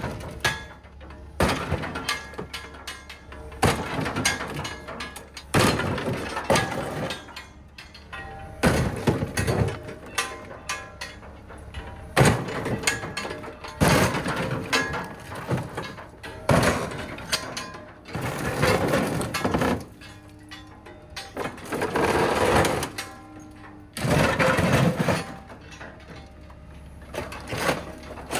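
Scrapyard material handler's hydraulic grapple crushing a wrecked Porsche 911 GT3 race car's body and roll-caged chassis: repeated sudden crunching and cracking of metal, coming in clusters every second or two. The machine's engine runs steadily underneath.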